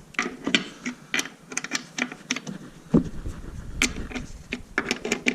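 Irregular sharp metallic clicks and clinks from working on a skid loader wheel, with one heavier thump about three seconds in.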